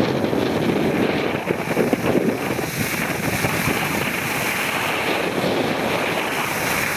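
Wind buffeting the microphone of a camera carried by a moving skier, a steady rumble, with the hiss of skis sliding over packed snow that grows stronger a few seconds in.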